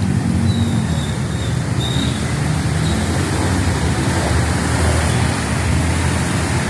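Road traffic in heavy rain: vehicle engines running and shifting in pitch over a steady hiss of rain and wet road.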